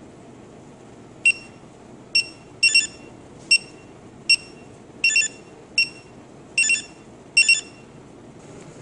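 Handheld AnyRead Bluetooth barcode scanner beeping as it reads barcodes: nine short high-pitched beeps, about one a second, some single and some in quick pairs, each marking a scan.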